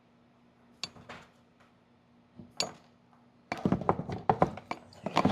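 A few sharp clicks, then from about three and a half seconds in a quick run of knocks and clatter from hard parts being handled: the amplifier being test-fitted into the watercraft's compartment.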